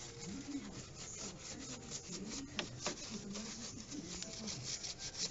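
Hand brush scrubbing over wet parts in a car's engine bay, in repeated, uneven strokes.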